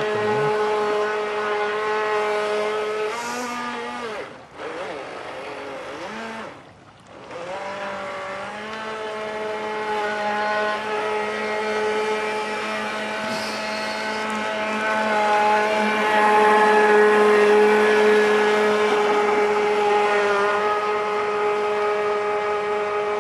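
Traxxas RC speedboat's electric motor whining at a steady pitch. It eases off about four seconds in, nearly cuts out around seven seconds, then winds back up to speed and is loudest in the second half.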